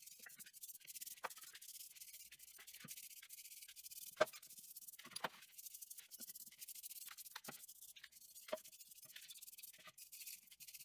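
Brushes scrubbing greasy metal drill press parts in a tray of kerosene to degrease them: a faint, steady scratchy hiss of bristles, with occasional knocks of parts against each other and the pan, the sharpest about four seconds in.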